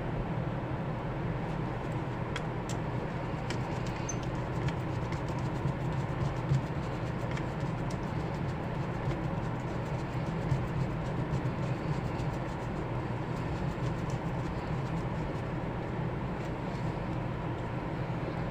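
Steady background hum with scattered light clicks and taps as a wire is fastened under the line 1 terminal screw of a wall switch.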